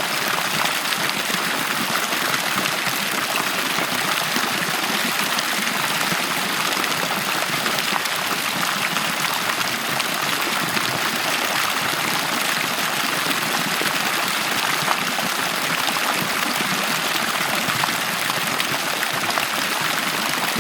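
Water in a pool running and splashing steadily, an even rush of moving water with no breaks.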